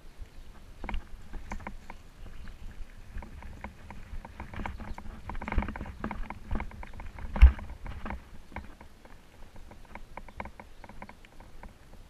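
Bicycle rolling over a rough gravel and broken-asphalt track: irregular clicks, rattles and knocks from the bike, with a low rumble underneath. A single heavier thump about seven and a half seconds in is the loudest moment, like a jolt over a bump.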